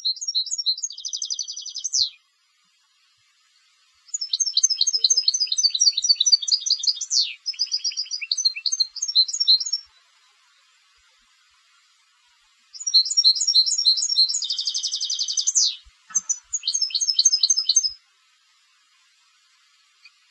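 A contest-trained European goldfinch singing: bursts of rapid, high twittering trills with dense buzzy stretches, in three phrases separated by short pauses.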